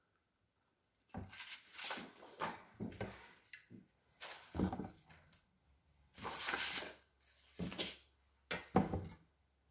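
A long metal ruler with a spirit-level handle being moved and set down on a paper-covered board: starting about a second in, a string of knocks, scrapes and hands brushing and sliding over the paper, with sharper knocks near the end.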